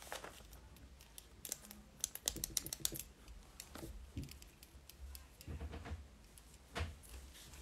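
Handling noise close to the microphone: scattered light clicks and taps, with a quick run of them about two seconds in and a single sharper click near the end.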